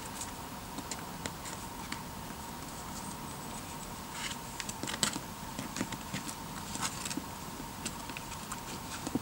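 Scattered light scrapes and taps of a climber's shoes and hands on a sandstone boulder, with a short cluster of scuffs near the middle, over a faint steady tone.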